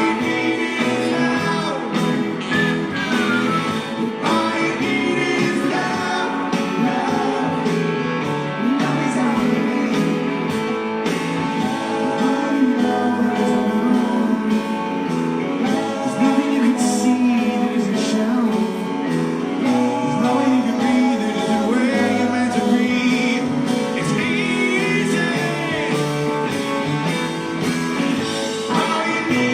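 Live rock band playing, with a man singing over guitars.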